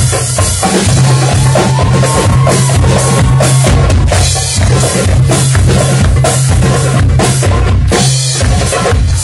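Live percussion ensemble playing a fast, driving rhythm: a drum kit with bass drum and snare, together with hand drums and a tambourine.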